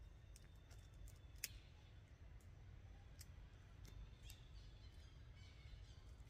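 Near silence: a faint low background rumble with scattered small clicks, one sharper click about a second and a half in.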